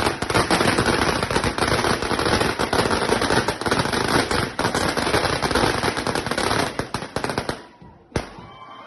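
A long string of firecrackers going off as a fast, dense run of sharp cracks. It dies away about seven and a half seconds in, and one last bang follows a moment later.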